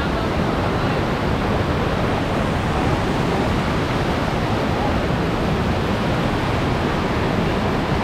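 Fast river water rushing over rocky cascades close by: a steady, even rush of water.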